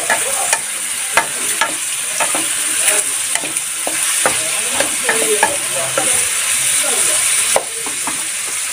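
Chicken livers sizzling in an aluminium pot while a wooden spoon stirs them, knocking and scraping against the pot about twice a second. The frying hiss eases slightly near the end.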